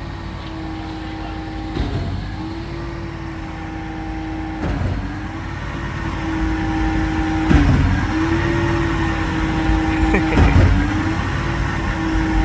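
An engine running steadily, its hum dipping briefly in pitch with a knock about every three seconds.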